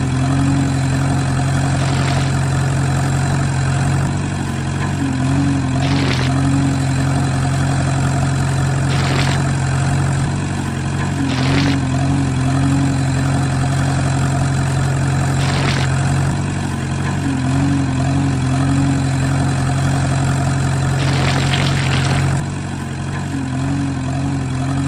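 Steady engine-idling drone that repeats the same pattern about every five and a half seconds, like a looped engine sound, with a few faint clicks on top.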